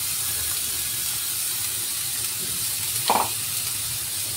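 Food sizzling in a frying pan as raw corn kernels are added to shredded chicken and garlic in butter and stirred with a wooden spoon: a steady hiss over medium heat, with one brief knock about three seconds in.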